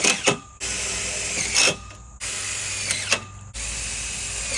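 Cordless drill driving screws to fasten a railing's top bracket, in four runs of about a second each, each ending with a sharp crack as the screw seats.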